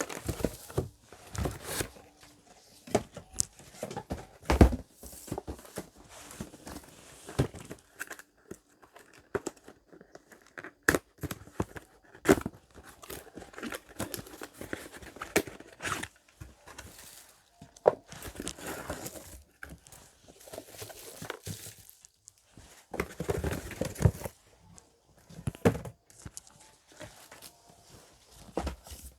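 Unboxing: cardboard speaker boxes and plastic packaging being handled, torn open and crinkled, with irregular knocks and rustles as the speakers are lifted out.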